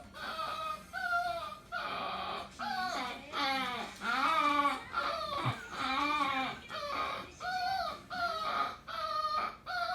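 A poodle giving a long series of short, voice-like cries instead of barks, about one every second or less, their pitch bending and wavering, with a few longer drawn-out cries in the middle.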